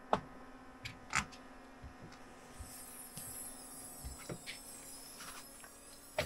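Camping gear being handled: scattered light clicks and knocks over a steady low hum, with a hissing rustle starting about two and a half seconds in.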